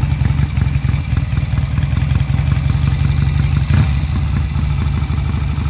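A 1958 Norton Dominator Model 99's parallel-twin engine idles with a steady, rapid pulsing exhaust beat. There is one brief louder moment just under four seconds in.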